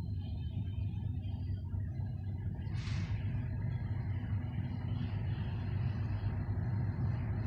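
Diesel engines of a 2M62U twin-section locomotive rumbling steadily as it approaches, slowly growing louder, with a brief hiss about three seconds in.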